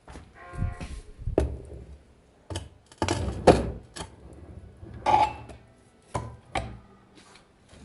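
A series of irregular knocks and clanks, about eight, the loudest cluster about three seconds in: an angle grinder stand being handled and adjusted, with the grinder not running.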